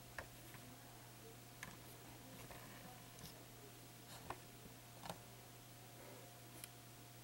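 Near silence: room tone with a steady low hum and about five faint, scattered clicks.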